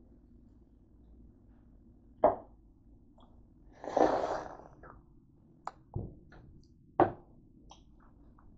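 Handling noise: a few sharp knocks, about two seconds in and again around six and seven seconds in, with a brief rustling scrape around four seconds in, as the camera is picked up and carried. Faint clicks fall between them.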